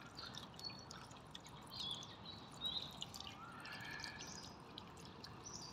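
Water from a small stone urn garden fountain trickling faintly, with separate drops plinking now and then.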